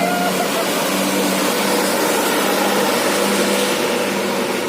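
Bus engine running steadily: a low, even hum under a broad rushing noise, with no horn sounding.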